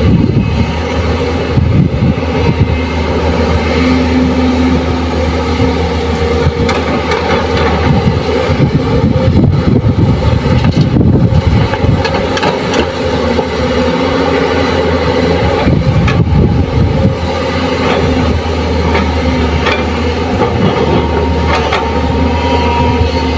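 JCB crawler excavator's diesel engine working hard, a loud steady drone, with heavy rumbles of soil pouring from the bucket into a steel dump-truck bed, the biggest about ten seconds in.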